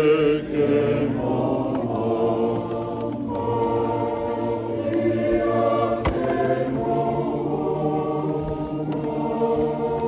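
Choir singing a slow hymn inside a church, many voices holding long notes.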